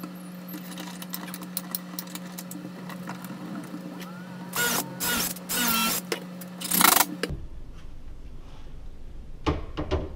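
Cordless drill running in four short bursts about halfway through, spinning up each time as it drives screws into a clamped cabinet face frame. Before that come light metallic clicks and rattles of tools and clamps being handled, and near the end a couple of knocks.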